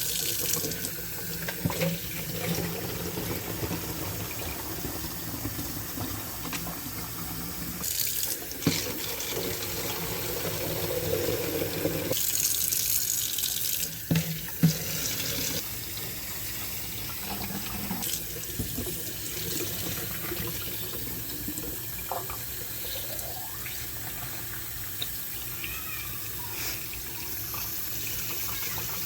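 Water running from a tap into rabbit water bottles as they are filled, the stream's sound changing a few times as it goes.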